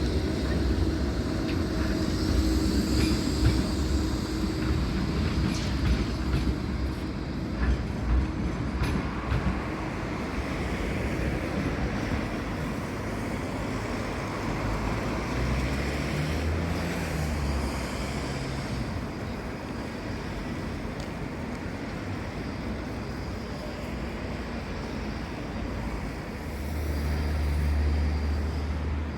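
A tram running on its rails: a steady rumble of wheels on track, with a few sharp clicks about six to nine seconds in and a low hum swelling near the end.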